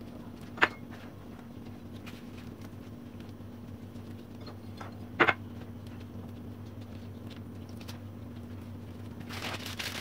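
Quiet handling sounds of hands pressing nuts into a soft slab of date halwa, over a steady low hum, with two sharp clicks about half a second and five seconds in. Near the end, the butter paper rustles as it is folded over the slab.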